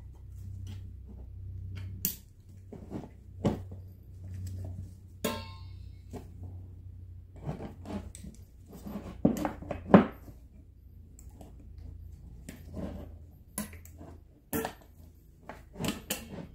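Steel drum brake hardware clicking and clinking as the shoes, springs and self-adjuster are handled and wedged together: an irregular run of short metallic clicks and knocks, the loudest about ten seconds in, over a low steady hum.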